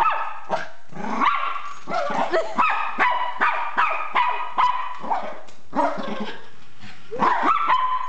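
Miniature pinscher barking repeatedly in quick runs of sharp, high barks, with a lull about five to seven seconds in before another burst near the end. The dog is agitated by a remote-control toy car.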